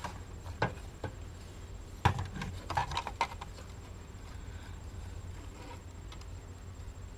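Clicks and knocks of a CB radio's plastic case and faceplate being handled and turned over, the loudest about two seconds in and a quick cluster near three seconds. A steady low hum runs underneath.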